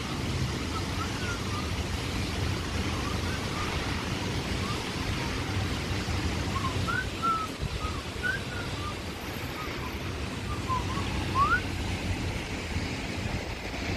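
Steady rushing outdoor noise, deepest at the bottom like wind on the microphone, with scattered short high chirps throughout.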